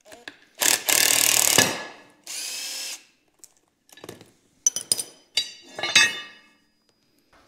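Cordless power driver running hard for about a second as it backs out a bolt, then a shorter, quieter whine. After that come several sharp metal clinks as the loosened bolt and plate are handled.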